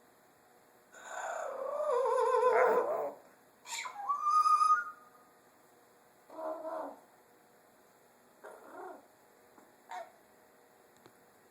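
A pet parrot calling: a long warbling call about a second in, then a short rising whistle, followed by a few shorter calls spaced out with pauses.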